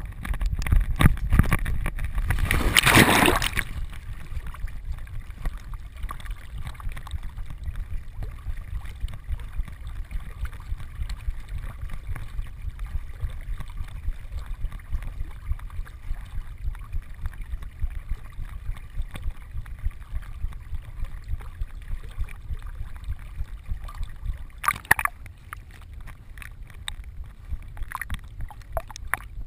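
A retriever plunging into a pond with a loud splash about three seconds in, then swimming steadily, with water sloshing and gurgling close around its vest-mounted camera. There is a brief splash near the end as the dog takes up a training bumper.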